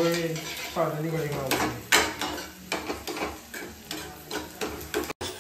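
A steel ladle stirring and scraping in a frying pan, with repeated clinks of metal on metal over a faint sizzle of onions frying in oil.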